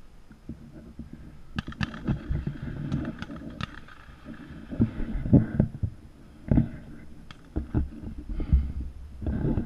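Handling noise on a shotgun-mounted action camera as the gun is moved low through grass: irregular dull thumps and rumble, with a few sharp clicks. No shot is fired.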